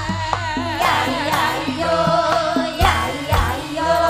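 A sinden, a Javanese female singer, singing a wavering melodic line into a microphone over instrumental accompaniment, with a couple of low drum beats about three seconds in.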